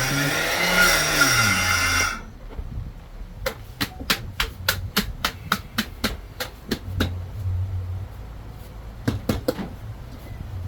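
Egusi grinding machine running loudly with a wavering pitch, then cutting off suddenly about two seconds in. A quick series of sharp knocks and clicks follows, about three a second, and a few more near the end.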